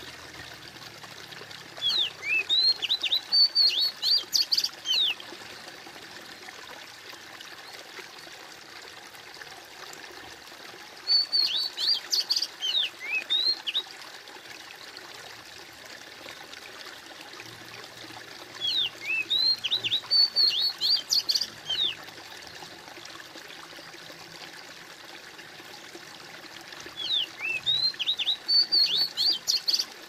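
Oriental magpie-robin (kacer) singing: a burst of quick, high, sharp notes lasting about three seconds, repeated four times about eight seconds apart. Under it runs the steady trickle and splash of stream water.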